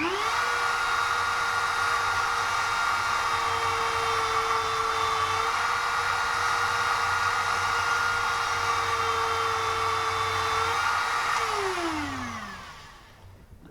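A small high-speed rotary tool spinning up at once, running with a steady high whine while drilling a tiny hole, its pitch dipping slightly now and then, then winding down with a falling whine near the end.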